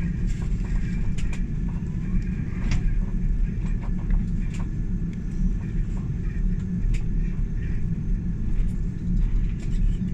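Cabin noise of a jet airliner on its take-off roll: a loud, steady low rumble of engines and wheels on the runway, with scattered light clicks and rattles.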